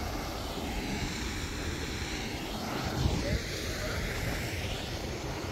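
Wind buffeting the microphone outdoors: a steady rumbling hiss, with a brief faint bump about three seconds in.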